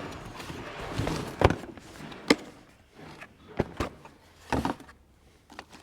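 Scattered sharp clicks and knocks of a plug and small hand tools being handled while a plug is fitted to a welder lead, four or five distinct taps with quieter rustling between.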